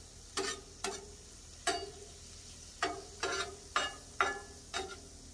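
Metal spatula scraping and clinking against the steel top of a Blackstone flat-top griddle while turning shrimp: about eight short strokes, each with a brief metallic ring. A faint steady sizzle of food frying runs underneath.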